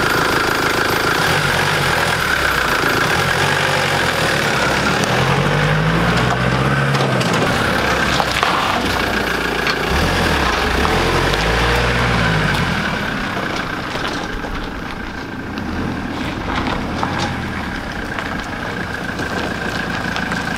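Ford Transit Mk6 recovery truck engine as the truck pulls away and drives past. The engine pitch rises and falls twice as it moves off, and the sound grows quieter after about thirteen seconds as the truck moves away.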